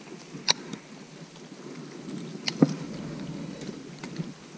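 Rustling with a few sharp clicks, the loudest about two and a half seconds in, from someone moving through brush at the edge of a pond.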